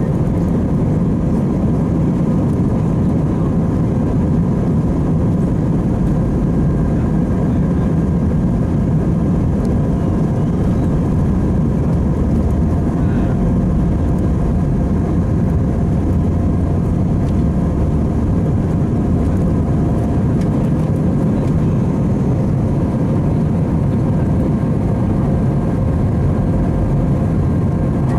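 Airbus A319-131 cabin noise from a window seat: the IAE V2500 engines and airflow make a steady roar with a few thin, steady whining tones over it.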